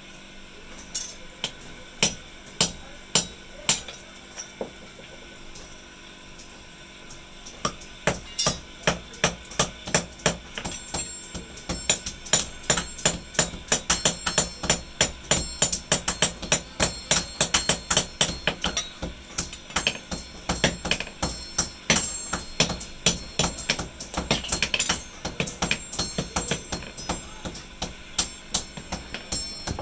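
Hand hammer striking steel on a small anvil while a wooden handle is fitted to a forged garden trowel blade, with sharp ringing metal taps. A few spaced blows come first, then after a short pause a steady run of rapid blows, several a second.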